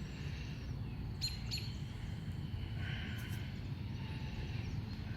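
Faint, short bird chirps over a steady low outdoor rumble.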